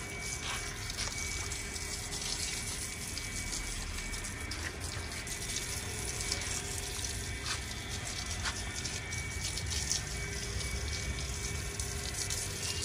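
Water spraying from a garden hose onto a bull's wet hide and splashing onto the paving, a steady rushing splatter.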